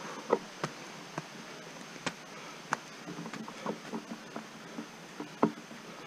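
Footsteps climbing a dirt forest trail: irregular short crunches and knocks, roughly one or two a second, over a steady faint high insect drone.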